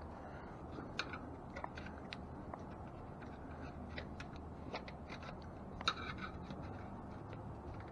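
Scattered light metallic clicks and scrapes of bicycle spokes and wheel parts being handled while an e-bike's rear wheel is re-spoked, the sharpest click about six seconds in, over a faint steady low hum.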